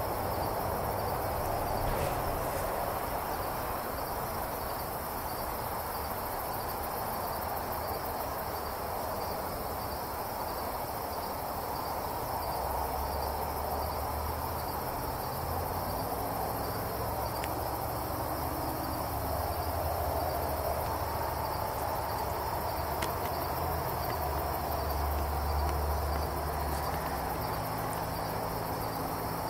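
A steady night-time insect chorus over a faint hiss, with a low rumble coming and going in the second half.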